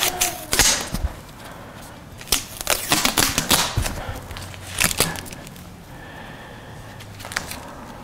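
Irregular sharp clicks, taps and crackles as a three-way light switch, just pulled out of its wall box, is handled and turned over, its plastic body and metal mounting strap knocking and the wires rubbing.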